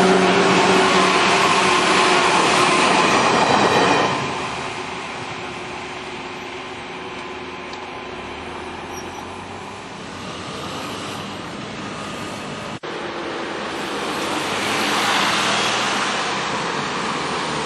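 JR West 103 series electric train passing close by, its wheels and motors loud with a steady whine. The noise drops away suddenly about four seconds in as the train clears, leaving a lower rumble of the departing train. Near the end a steady rushing noise swells again.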